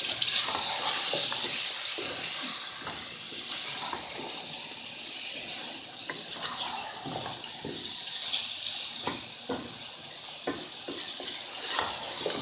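Chopped radish pods and freshly added potato chunks sizzling in hot oil in a metal pot as they are stirred, with a steady hiss and the wooden spoon scraping and knocking against the pot again and again.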